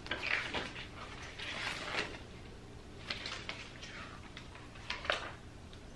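Paper and cardboard rustling as a recipe booklet and printed leaflets are handled and pulled from a cardboard box, with small clicks and one sharp tap about five seconds in.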